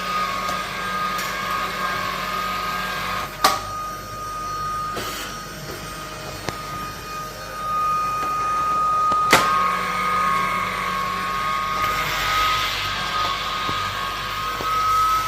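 Handheld vacuum cleaner motor running with a steady high whine. A sharp click about three and a half seconds in, after which it runs quieter, and another click a little after nine seconds, after which it runs at full level again.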